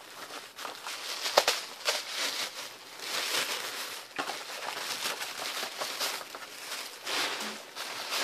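Wrapping paper crinkling and rustling as a wrapped box is unwrapped by hand, with sharp crackles all through and the loudest about a second and a half in.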